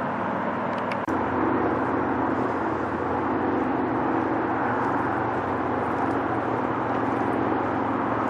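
Steady, even hum of road traffic.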